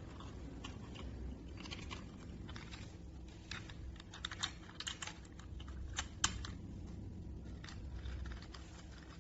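Light, irregular clicks and taps of small metal lock parts being handled and fitted while a deadbolt lock cylinder is installed, with one sharper click about six seconds in.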